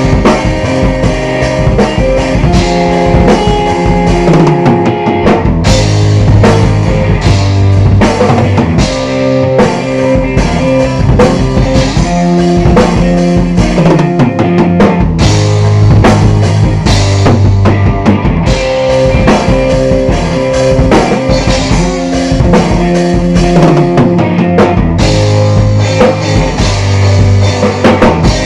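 Instrumental rock music played on electric guitar and drum kit: sustained guitar notes over a steady drum beat.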